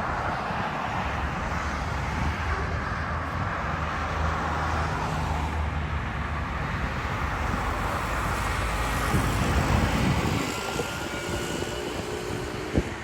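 Wind blowing on the microphone by the sea, with a steady low hum underneath and gusts of rumbling buffeting about two-thirds of the way through.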